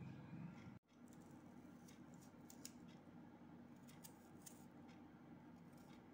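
Faint, sharp clicks of a kitchen knife cutting into an onion held in the hand, a few separate cuts over a low steady background hum. The sound drops out briefly about a second in.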